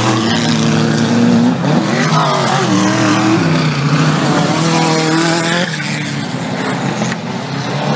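4WD off-road race vehicles' engines running and revving, the pitch rising and falling as they change speed, a little quieter after about six seconds.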